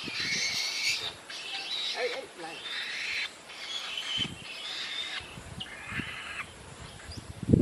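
An owl held in the hand giving repeated harsh, hissing screeches, about six in a row, each lasting under a second.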